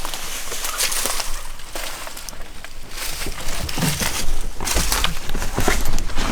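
Footsteps crunching and snapping through dry leaves and twigs as people walk briskly, with a low rumble on the microphone joining in about two-thirds of the way through.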